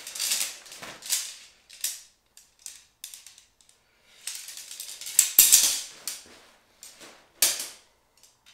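Shock-corded tent poles being pulled from their fabric stuff sack and unfolded, the pole sections clacking and snapping together in a string of irregular clicks with some rustling. The loudest clacks come about five seconds in and again near the end.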